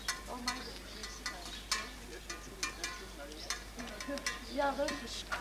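Footsteps of two people walking slowly on asphalt, with the taps of a walking cane: sharp irregular clicks about two or three a second.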